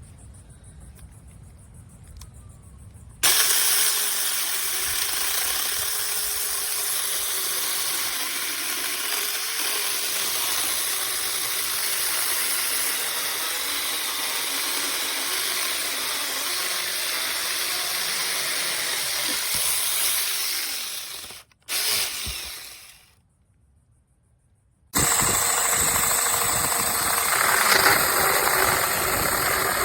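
Cordless handheld electric chainsaw with a brushless motor running, a loud steady whine with chain noise that starts abruptly about three seconds in. It cuts out a little after twenty seconds, and after a short silence it runs again.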